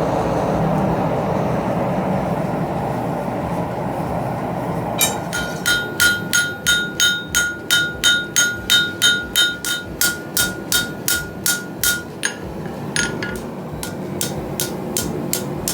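Blacksmith's hand hammer striking flat steel bar stock on an anvil, a steady run of about three ringing blows a second, then slower, lighter taps near the end. A steady rushing noise fills the first few seconds before the hammering starts.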